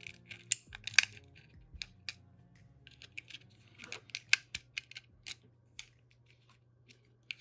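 Small metal pry tool clicking and scraping against the plastic and metal parts of a GoPro Hero 8 being taken apart: an irregular scatter of sharp ticks, loudest about a second in and again near the middle, thinning out toward the end.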